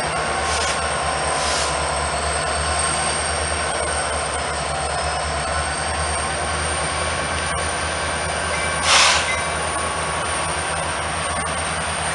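Two Union Pacific diesel freight locomotives rolling slowly past, their engines droning steadily, with a thin, steady high-pitched wheel squeal over the rumble. A brief loud hiss comes about nine seconds in.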